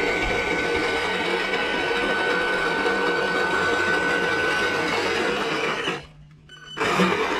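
Electric RC crawler truck's brushless motor and geared drivetrain whining steadily under load in deep mud. The motor cuts out for just under a second about six seconds in, then picks up again.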